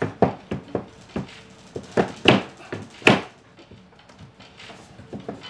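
Irregular knocking and thudding, about ten knocks in the first three and a half seconds, the loudest two about two and three seconds in, then only faint knocks.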